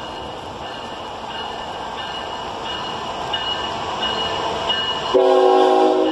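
Approaching freight train: a steady rumble slowly growing louder. Then, about five seconds in, the locomotive's air horn sounds a chord for about a second.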